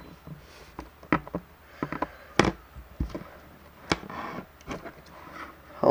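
Scattered small clicks and taps from handling phone parts and tools at a workbench, about eight in all, the sharpest about two and a half seconds in.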